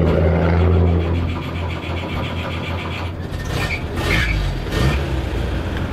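Nissan Patrol 2.8-litre turbo-diesel engine running, loudest in the first second and then settling a little lower. A few brief sharper sounds come around three to five seconds in.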